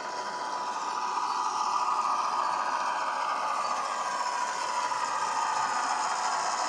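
Sound decoder in a model Irish 181 class diesel locomotive playing its diesel engine sound through a small speaker, the engine note gliding slowly down in pitch. It gets louder about a second in as the model approaches along the track.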